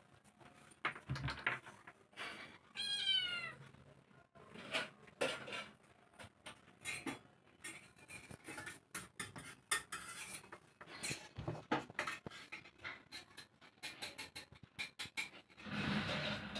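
A kitten meows once, a falling call about three seconds in, while kittens scamper about on a stone floor, with many sharp light taps and knocks throughout.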